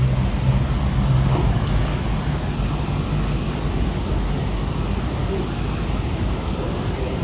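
Steady low rumble of background noise, with a faint hum in the first second or so and no distinct events.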